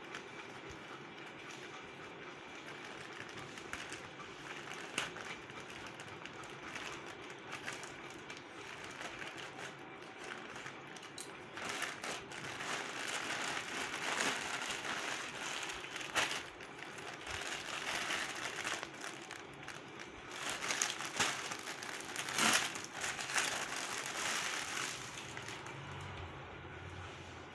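Thin plastic courier mailer bag crinkling and crackling as hands cut and pull it open, with irregular rustles and a few sharp crackles; the handling gets louder and busier about halfway through as the bag is torn wider, then settles near the end.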